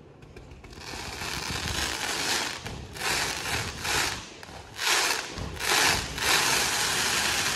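Fireworks cake firing volleys of rising comets with squiggling tails: a continuous rushing hiss that builds from about a second in and swells in several surges, without sharp bangs.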